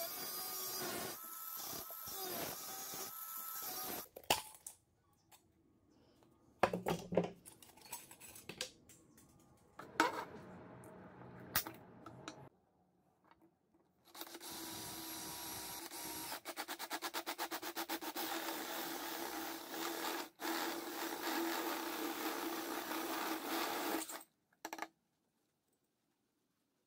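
Angle grinder cutting into the steel casing of an old car oil filter, stopping about four seconds in. Then several sharp knocks and handling clatter, and an electric drill running steadily as it bores through the filter's steel end for about ten seconds before stopping near the end.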